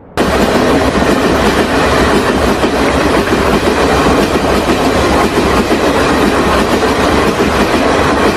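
A train passing over the track: a steady, dense noise of wheels running on rails that starts suddenly just after the start.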